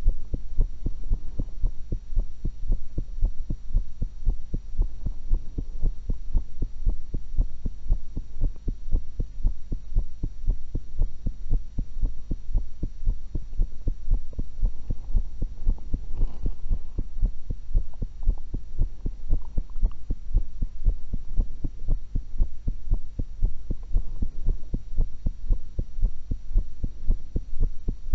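A woman's heartbeat heard through a stethoscope: a steady, even run of low thumps over a constant low hum.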